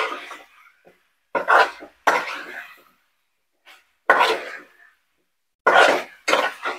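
A person coughing repeatedly: about six short, harsh coughs, some coming in pairs, with brief pauses between.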